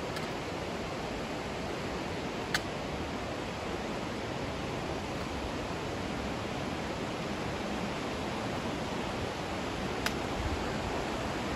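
Steady rushing of a mountain creek's falling water, with two brief faint ticks, one about two and a half seconds in and one near the end.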